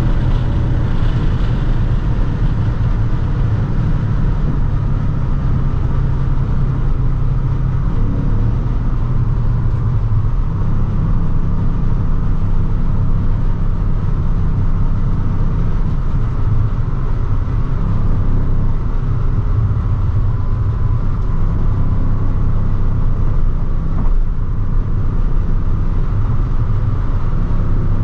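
Audi S6 Avant's 4.2-litre V8 droning steadily at high autobahn speed, heard from inside the cabin over an even rush of road and wind noise.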